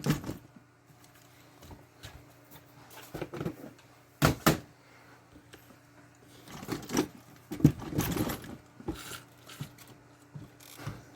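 Handling noise of tools and small parts being moved about: scattered clicks and knocks, with a sharp knock right at the start and another about four seconds in, then looser rummaging in the second half.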